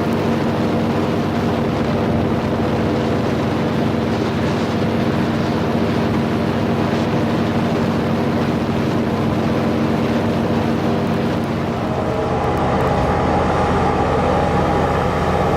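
Airboat engine and propeller running steadily under way, revving up about twelve seconds in.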